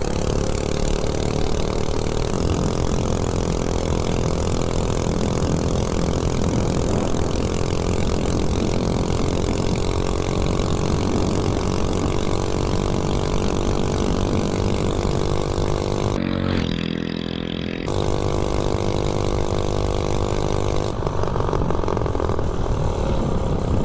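A Coleman CC100X mini bike's 179cc snowblower engine running with no exhaust pipe, held at high revs on a full-throttle top-speed run, with wind rushing over the microphone. The engine note climbs a little early on and then holds steady. The wind hiss briefly drops out about two-thirds of the way in.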